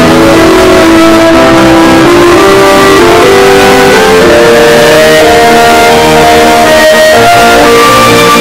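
A television theme tune played back with extreme distortion, clipped flat at full loudness. Its melody moves in held notes that step up and down in pitch.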